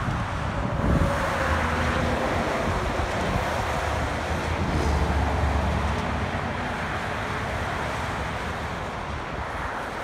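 Steady rush of highway traffic passing at speed: tyre noise and engines of cars and a truck. The low rumble swells in the first half and eases toward the end.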